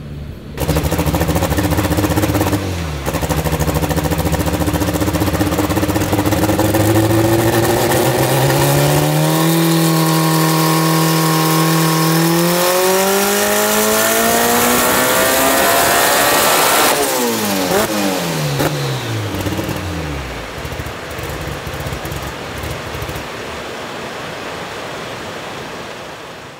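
Turbocharged Honda B18 1.8-litre four-cylinder running a power pull on a hub dyno. The engine holds steady for several seconds, then climbs smoothly in pitch for about eight seconds toward 8,000 rpm, then falls away as it winds down, leaving a quieter running sound.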